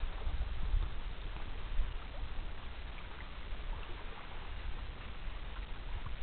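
Gusty low wind rumble on the microphone over a faint, steady wash of lake water; the distant moose themselves make no distinct sound.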